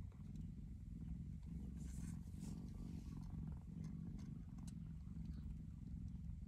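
Domestic cat purring in a steady low rumble that swells and eases in slow breaths, with a few faint soft clicks over it.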